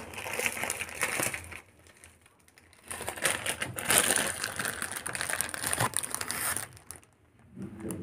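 Plastic bread bag crinkling as it is handled and opened, in two spells of crackling with a short quiet pause between them.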